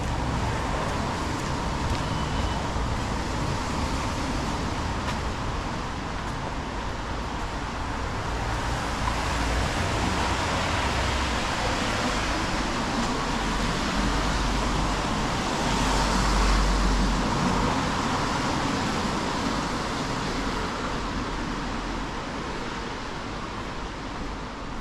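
Steady city street traffic noise, with one vehicle passing louder about two-thirds of the way through.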